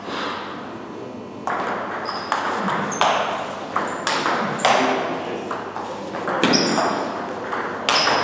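Table tennis ball clicking sharply off bats and table in a rally of forehand topspins against chops, starting about a second and a half in.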